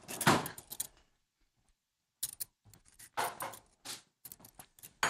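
Scattered small clicks and short scrapes of hands handling small objects and utensils at a kitchen counter, broken by a second of near silence about a second in.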